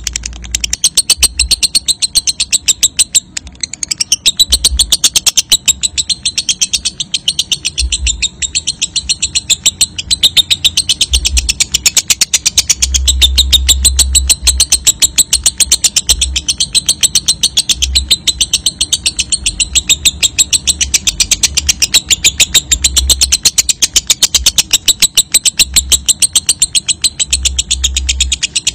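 Fischer's lovebird singing a long, continuous ngekek: a rapid, high, chattering trill that runs on without a break, the sustained song that lovebird keepers prize in contests.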